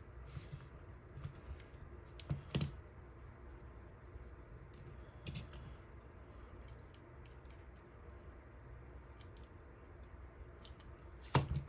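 Small metallic clicks of a lock pick and tension wrench working inside a dimple lock cylinder: a handful of sharp, irregularly spaced ticks over faint room noise, the loudest about halfway through and near the end.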